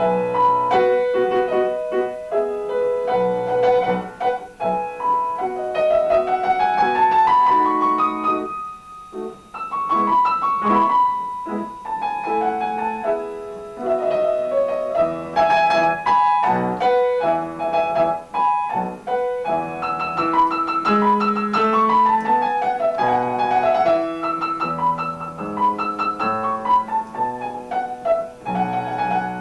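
Piano playing a classical piece, with rising and falling runs of notes over sustained chords.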